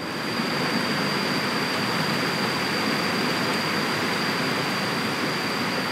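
Stream water rushing and splashing over rocks, a steady hiss of flowing water, with a thin, steady high tone held above it.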